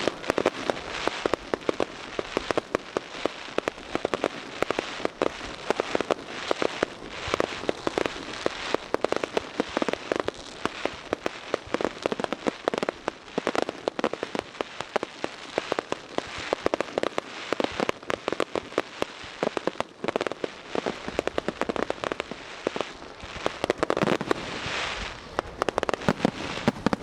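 Aerial fireworks bursting in quick succession, with a dense, unbroken run of sharp cracks and crackling and a thicker cluster of bursts near the end.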